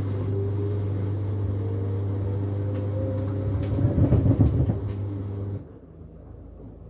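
LG washing machine running its drum motor: a low hum with a whine that rises slowly in pitch as the drum speeds up. It shakes with a burst of loud knocking and rattling about four seconds in, then the motor cuts off suddenly about a second later.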